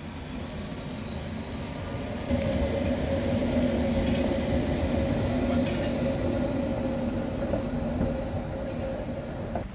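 A tram running on rails, with a steady rumble and a steady hum that get louder about two seconds in and hold until a sudden cut near the end.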